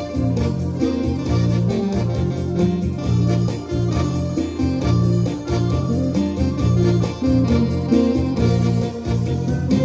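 Live ensemble music: electronic keyboards play sustained, organ-like chords under a melody, with a flute joining in.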